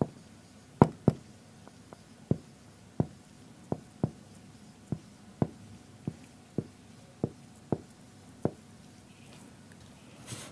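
Marker writing on a whiteboard: a string of sharp, irregular taps, one or two a second, as the tip strikes the board, stopping about eight and a half seconds in.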